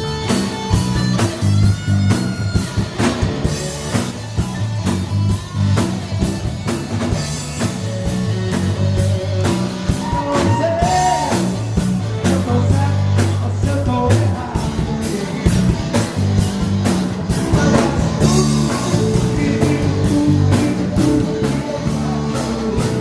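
Live band playing rock-style dance music: drum kit keeping a steady beat under a bass line and electric guitar, with singing.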